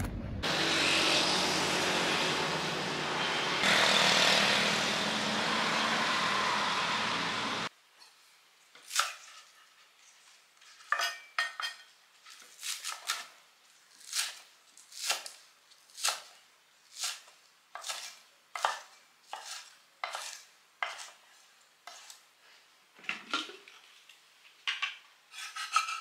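Steady, noisy supermarket background, which cuts off about eight seconds in. Then a chef's knife slices spring onions on a wooden cutting board, a series of sharp strokes against the board roughly one to two a second.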